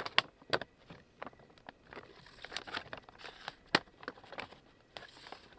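Faint crinkling of a Japanese beetle trap's plastic bag and panels, with scattered small clicks, as the panel pegs are fitted into the loops on the trap's entrance.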